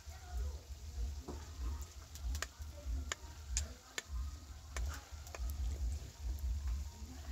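Metal spoon stirring chicken, potato and tomato curry in an iron kadai: the food sizzles while the spoon scrapes and knocks sharply against the pan several times a second, irregularly. A low rumble runs underneath.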